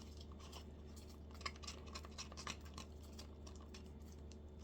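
Glue being stirred in a container with a utensil: light, irregular clicks and scrapes of the utensil against the container.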